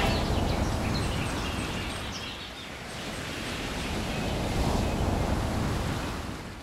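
Steady rushing noise of wind and water, with no clear engine tone, dipping a little partway through and fading out at the end.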